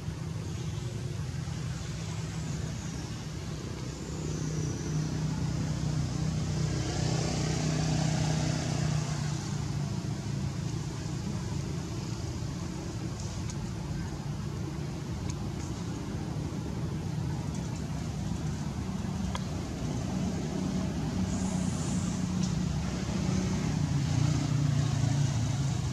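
Steady low rumble of motor-vehicle engine noise, swelling for a few seconds about six to ten seconds in, as of a vehicle passing.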